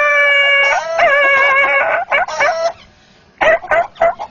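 A man imitating a dog yelping in pain after being struck with a stick: several long, wavering wails, each starting with a quick upward yelp. Near the end the long wails give way to short, choppy calls.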